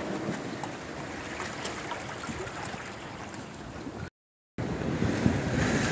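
Steady wash of sea and wind noise on a rocky shoreline. It drops out to silence for about half a second about four seconds in, then comes back a little louder.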